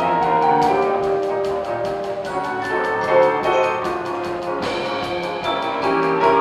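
Orchestra playing an instrumental passage of a show tune: held chords and melody over a quick, even ticking beat of about six ticks a second.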